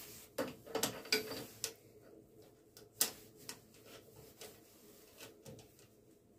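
A brass bar knocking against the steel jaws of a lathe chuck as it is fitted, and a chuck key clicking in the chuck as the jaws are tightened. Sharp metallic clicks and knocks, a quick cluster in the first two seconds, one strong click about three seconds in, then lighter ticks.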